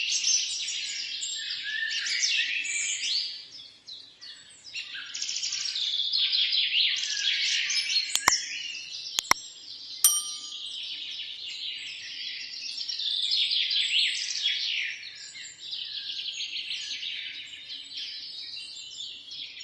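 A dense chorus of many small birds chirping and twittering without a break, thinning briefly about four seconds in. Three sharp clicks come around eight to ten seconds in, the last with a brief ringing tone.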